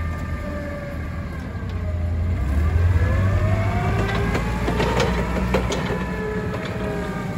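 A 2002 Tailift FG25C propane forklift's engine running as the truck drives, louder from about two seconds in. A whine rises in pitch and falls again, and there are a few light rattles in the middle.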